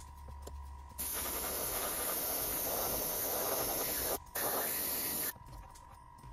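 Airbrush with a 0.2 mm nozzle at about 25 psi spraying thinned paint: a steady hiss that starts about a second in, breaks off briefly around four seconds, resumes, and stops about a second before the end.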